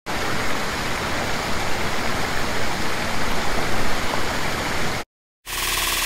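Waterfall pouring in a steady, loud rush of water that cuts off suddenly about five seconds in; after a brief silence, electronic music starts just before the end.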